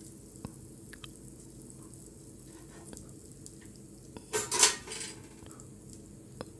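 Slotted spatula clinking and scraping against a kadai, with one louder clatter about four seconds in.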